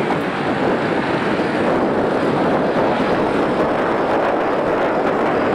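Steady rushing noise of wind and choppy sea water, even throughout with no distinct events.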